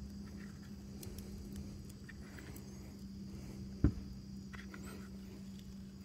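Dry rub being shaken from a plastic cup and pressed onto a raw steak on a wooden cutting board: faint pattering and handling, with one short sharp tap a little under four seconds in, over a steady low hum.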